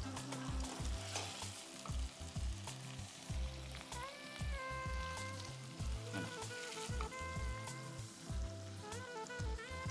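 A metal spatula scrapes and knocks jackfruit curry out of a hot non-stick wok onto a plate, and the curry sizzles faintly in the pan. Faint background music comes in about four seconds in.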